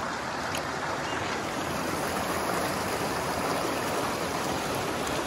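Creek water rushing steadily over rocks and small cascades.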